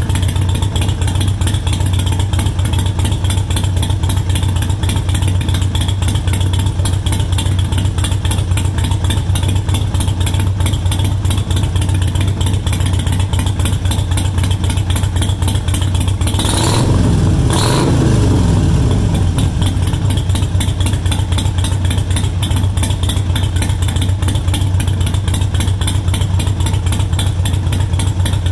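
Air-cooled V-twin of a 2018 Harley-Davidson Sportster Iron 883 idling through a Cobra Speedster Short exhaust, with the idle tuned down to 800 rpm. About two-thirds of the way through, a quick blip of the throttle sends the revs up, and they settle back to idle.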